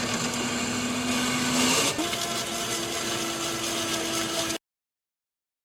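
Convenience-store self-serve smoothie machine blending a frozen smoothie cup: a steady motor hum that steps up to a higher pitch about two seconds in. It cuts off suddenly to silence near the end.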